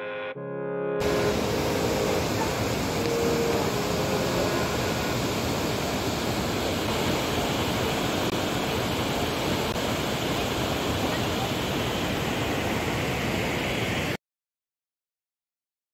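Roar of a large waterfall: a steady, dense rush of falling water that cuts off suddenly about two seconds before the end.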